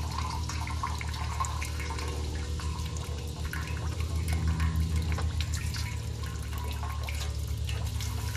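Distilled flush water dripping from a radiator's open drain plug, over a steady low hum.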